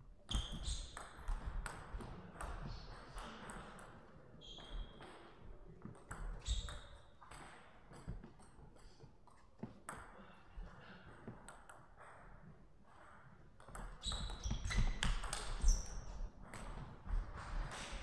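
Table tennis ball clicking off rubber-faced paddles and bouncing on the table during a rally, in quick, irregular knocks. The exchange gets faster and louder about two-thirds of the way in, before the point ends.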